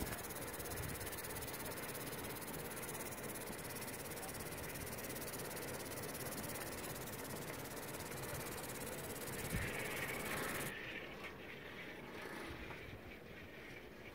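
Steady outdoor rushing hiss of wind on the microphone, with a single knock about nine and a half seconds in. The hiss drops away abruptly about eleven seconds in, leaving a quieter outdoor background.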